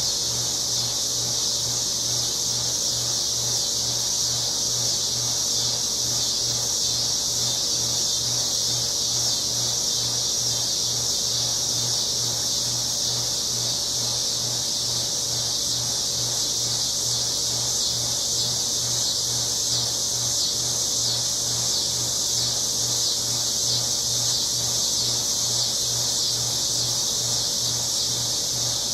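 Steady, dense chorus of insects, a continuous high shrill buzz that does not let up, over a low pulsing hum.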